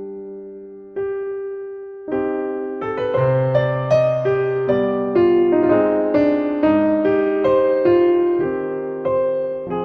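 Solo piano music, an allemande: a held chord fades, a single note sounds about a second in, then a flowing, even line of notes begins about two seconds in.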